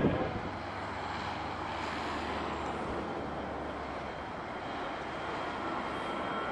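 Aircraft engines running with a steady drone.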